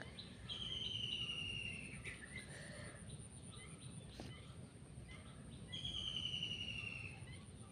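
A bird calls twice, about five seconds apart. Each call is a slightly falling, trilled note about a second and a half long, heard over steady background noise.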